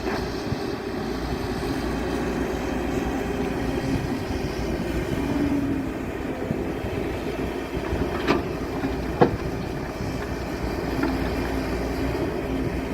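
Machinery engine running steadily with a low rumble and a faint hum, with two sharp knocks a second apart about eight seconds in.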